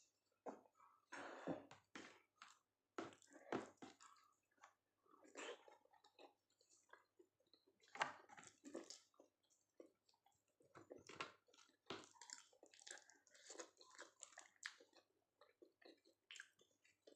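Close-up chewing and mouth sounds of someone eating a soft, wet meal of dal, rice and noodles: irregular moist smacks and squishes with short pauses between mouthfuls.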